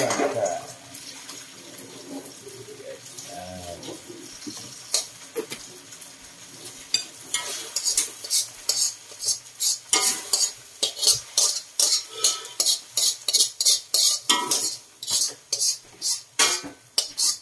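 A metal spatula scraping and knocking against a steel wok while instant noodles are stir-fried. The strokes are sparse at first, then from about halfway they come fast and loud, roughly three a second.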